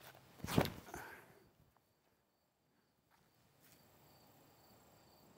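A disc golf throw from a concrete tee pad: one sudden sharp sound of the throw about half a second in and a softer, shorter one just after, then faint insects chirping.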